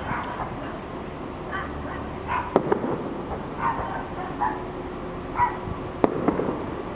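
A fireworks display, with two sharp bangs about two and a half and six seconds in, and short pitched calls about once a second throughout.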